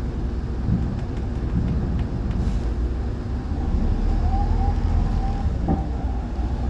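Optare Solo M920 bus heard from inside the saloon, its engine running with a steady low rumble as it moves slowly in traffic. A steady drivetrain whine comes in about four seconds in as the bus picks up speed, with a short knock or rattle near the end.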